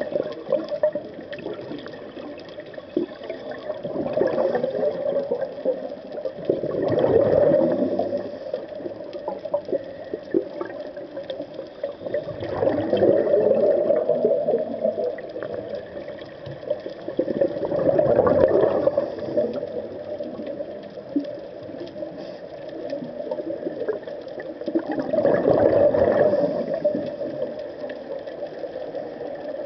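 A scuba diver's exhaled bubbles rushing and gurgling past the underwater camera in surges every few seconds, about five times, over a steady underwater hiss: the rhythm of a diver breathing out through a regulator.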